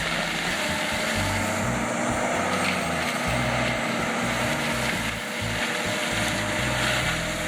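A heavy machine's engine running steadily under a constant hum, with a background music bass line.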